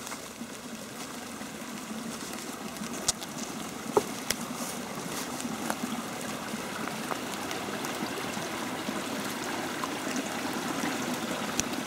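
Water from an unseen underground stream running and trickling steadily. A few sharp clicks sound about three and four seconds in.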